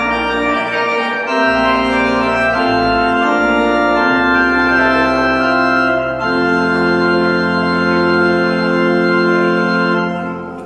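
Pipe organ playing the close of a closing voluntary: full sustained chords over deep pedal bass notes, changing every second or so. From about six seconds in it holds one long final chord, released near the end.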